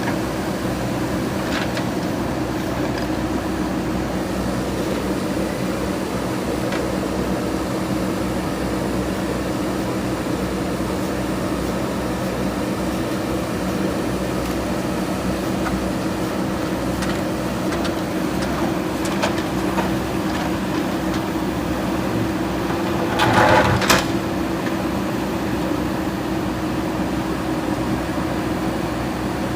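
JCB 3DX backhoe loader's diesel engine running steadily as it works. About three-quarters of the way through comes a brief, louder clatter lasting about a second.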